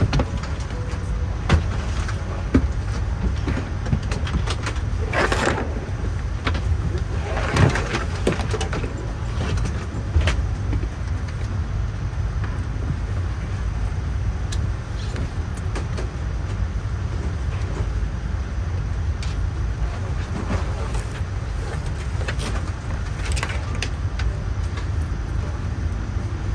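Steady low rumble of a vehicle with scattered clicks and knocks, and two brief rushes of noise about five and seven and a half seconds in.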